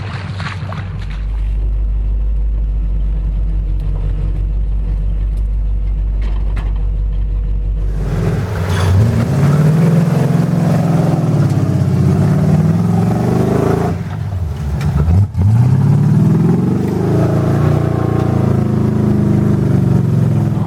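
Off-road 4x4 engine running with a steady low rumble, then from about eight seconds in revving up and down again and again, with a brief drop near the middle of the revving.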